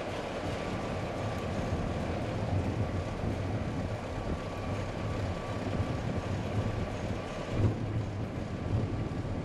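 Diesel locomotive engine running steadily: a low, even rumble with a faint whine above it. A brief thump near the end.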